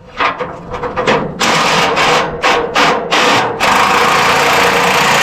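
A small motor with a steady whine under a loud rushing noise, run in several short bursts and then held for about two seconds before stopping.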